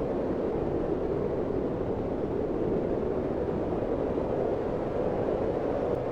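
Strong blizzard wind on a mountain, blowing steadily as a dense, low rushing noise with no breaks or sharp gusts.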